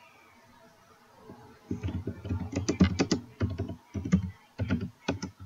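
Typing on a computer keyboard: quick runs of keystrokes broken by short pauses, starting a little under two seconds in.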